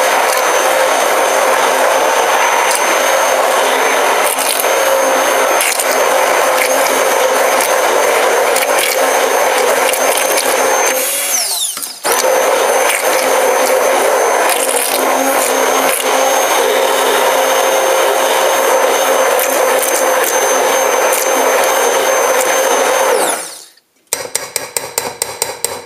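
Stick blender running steadily, puréeing tofu and water in a stainless steel bowl into a creamy yoghurt-like consistency. About halfway through it winds down and stops for a moment, then starts again and runs until it winds down and stops near the end, followed by a quick run of taps.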